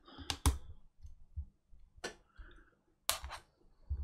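Five small sharp clicks from the parts of an opened MacBook Air being handled: ribbon-cable connectors being fitted and pressed down onto the logic board. The clicks come as a pair near the start, a single one about two seconds in and another pair about three seconds in.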